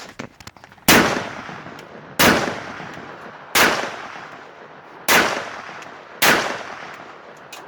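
Service rifle with open sights fired five times, a shot every second and a half or so, each shot followed by a fading echo.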